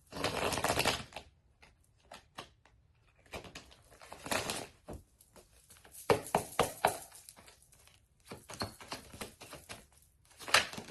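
Tarot cards being shuffled by hand: a rush of shuffling in the first second, then scattered clicks and taps of the cards, with further bursts of shuffling around the middle and near the end.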